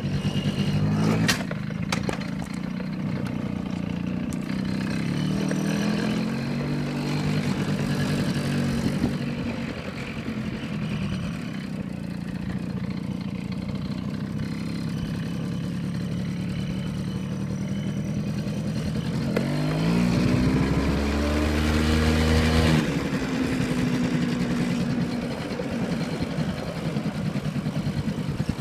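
A Yamaha motorbike's engine running as it is ridden, its pitch rising and falling with the throttle and climbing hardest about two-thirds of the way through. There are a few sharp knocks in the first couple of seconds.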